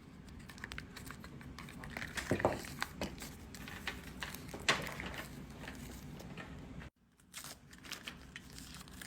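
Packaging crinkling and rustling with scattered small clicks and knocks as a small label printer is unwrapped and handled.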